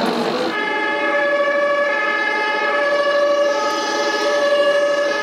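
Siren from the sound module of a radio-controlled model fire engine: a steady, horn-like chord of several tones that comes in about half a second in and holds.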